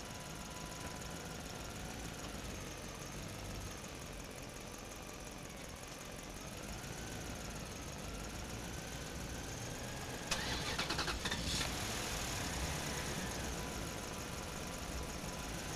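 Plastic toy tractor pulled by a string over a tiled floor among plastic building blocks, with a faint steady background. About ten seconds in comes a burst of rapid plastic rattling and clattering lasting over a second.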